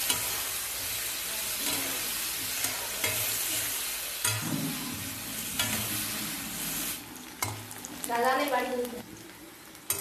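Mushroom pieces sizzling as they fry in oil in an aluminium kadai, with a metal spatula stirring and now and then clicking against the pan. The sizzle drops off about seven seconds in.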